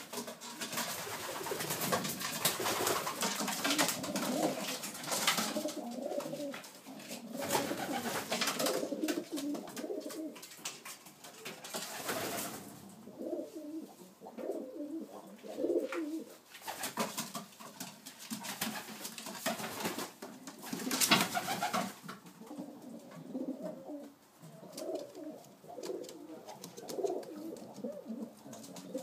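Domestic pigeons cooing in a small loft, low calls repeating again and again. Bursts of rustling noise come and go over the cooing, the loudest about two-thirds of the way through.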